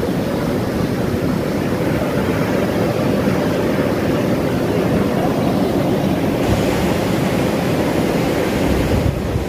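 Steady, loud rushing noise of steam venting from geothermal fumaroles close by.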